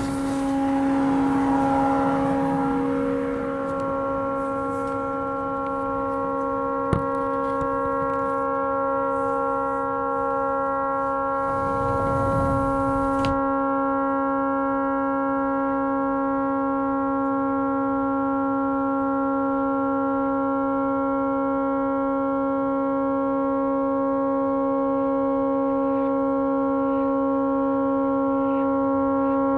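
Tugboat horn stuck on because of a malfunction, blowing one continuous, unwavering chord of several steady notes. A rushing hiss fills the first half and stops abruptly, and there is a single click about a third of the way in.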